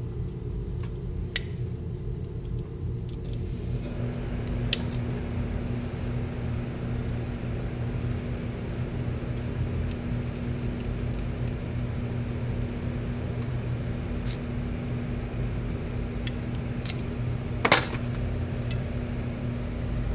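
Sharp metal clicks and clinks, a few seconds apart, as a screwdriver works the intake valve out of the valve chamber of a small REO lawn mower engine. One louder clink comes near the end. Under them runs a steady low machine hum that gets fuller about four seconds in.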